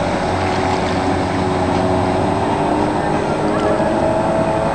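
Outboard motors of many racing boats running together at speed: a steady, loud drone made of several engine tones at slightly different pitches that drift up and down a little.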